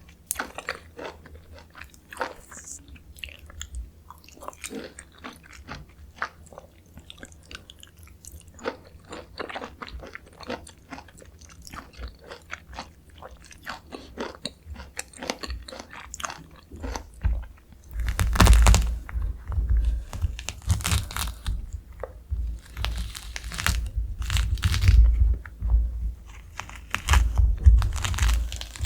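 Close-miked chewing of Jeju mandarin orange segments: soft clicking mouth sounds at first, growing louder and denser about two-thirds of the way through as fresh bites are chewed.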